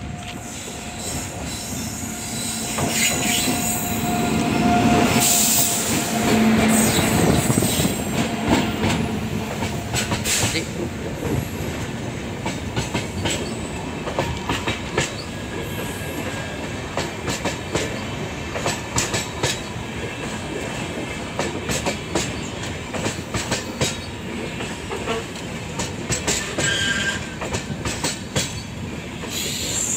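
Indian Railways WAP-7 electric locomotive running past at speed with a train of LHB coaches. It is loudest about four to eight seconds in as the locomotive goes by, then the coaches roll past with a steady rumble and rapid clicks of wheels over the rail joints.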